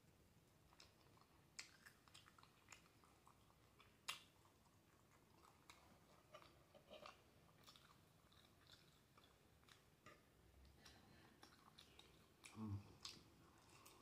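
Faint mouth sounds of a person chewing a mouthful of black bean noodles and boiled egg, with scattered small wet clicks and smacks. There is a brief louder sound near the end.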